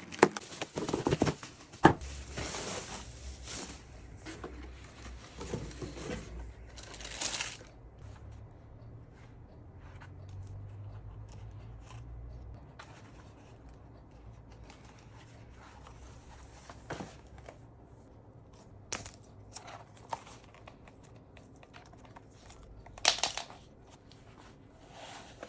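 Paper and cardboard packaging rustling and crinkling as a shoe box is unboxed. The rustling is dense for the first several seconds, then gives way to scattered light clicks and handling knocks, with another short rustle near the end.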